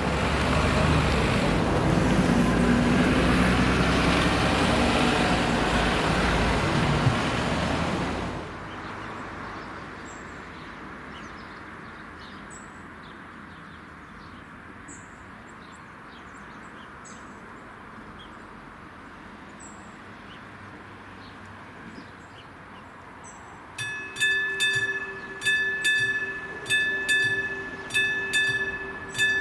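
Cars driving over a level crossing, a loud road noise that cuts off abruptly about eight seconds in. A quiet stretch with faint high chirps follows, until an AŽD 71 level-crossing warning bell starts ringing near the end: evenly spaced strokes, a little faster than one a second, signalling an approaching train.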